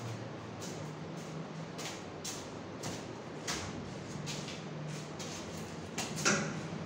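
Classroom room noise: a low steady hum with scattered clicks, scrapes and rustles, and a louder knock or scrape near the end.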